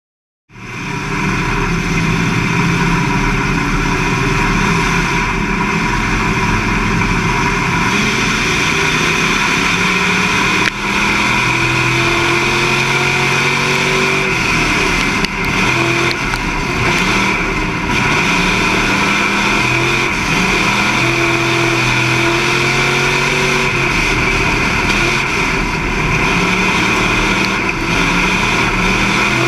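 Street stock race car's engine heard from inside its cabin, running hard on a dirt oval, its pitch rising and falling again and again as the driver accelerates and lifts off. It starts about half a second in.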